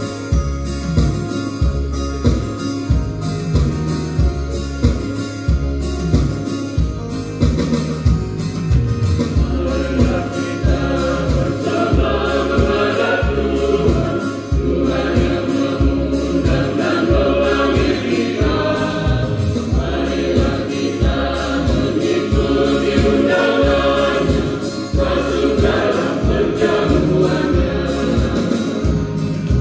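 Electronic keyboard accompaniment with a steady drum-machine beat, and a mixed church choir of women and men coming in about eight to ten seconds in to sing a hymn over it.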